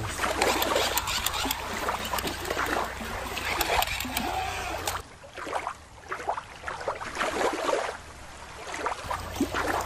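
River water splashing, with many short clicks and knocks from plastic toys being handled in shallow water.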